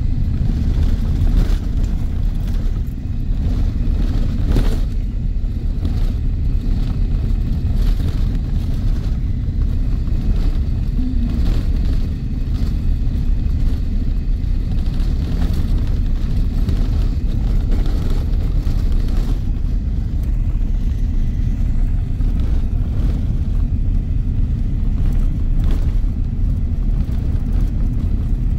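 Steady low rumble of a car driving at highway speed, tyre and road noise mixed with wind noise, heard from inside the car.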